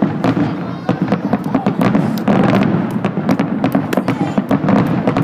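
Fireworks going off, a rapid string of many sharp pops and crackles each second over a steady low rumble.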